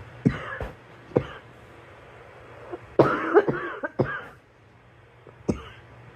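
A girl coughing: two quick coughs at the start and another about a second in, a run of several voiced coughs from about three to four seconds in, then one last cough near the end.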